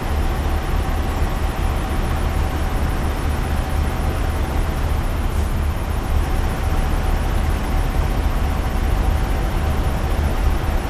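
Steady low rumble of road traffic and idling truck engines, with a faint steady whine over it.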